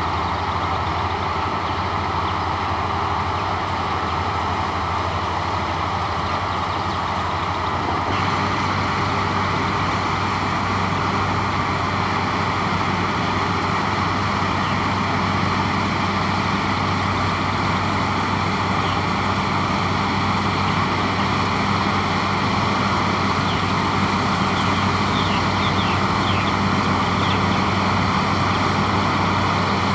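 Heavy diesel farm machinery running steadily under load, its engine note shifting slightly about eight seconds in.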